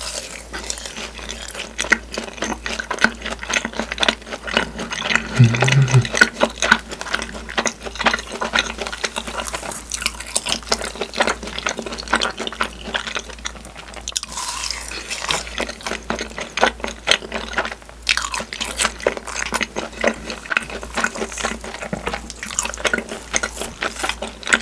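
Close-miked wet chewing and mouth smacking while eating takoyaki (octopus balls), a dense stream of small wet clicks.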